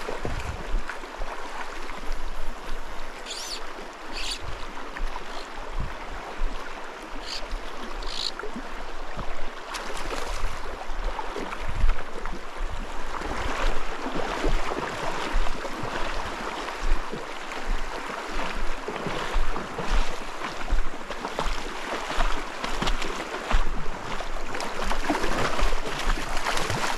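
Shallow mountain stream rushing over rocks, a steady wash of moving water that grows louder and more uneven about halfway through. Irregular low bumps on the microphone run underneath.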